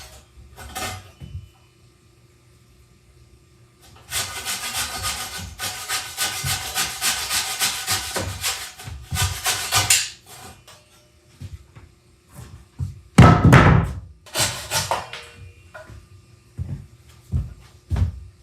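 A hand tool working wood with quick repeated rubbing strokes for several seconds, over background music, then a few heavy knocks.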